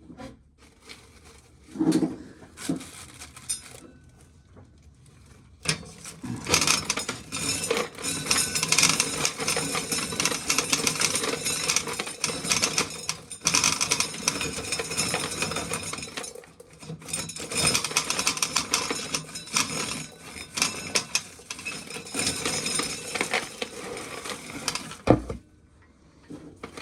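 Hand-cranked corn sheller being cranked with an ear of corn fed through, a continuous metallic rattling and clattering as kernels are stripped off the cob, with a brief break partway through and a single sharp knock near the end. A few handling knocks come before the cranking starts.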